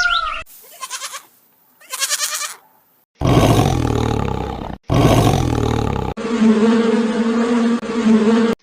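A run of separate animal-call clips edited together. The loudest are two long, deep roars, each about a second and a half, followed by a long call that holds two steady low tones.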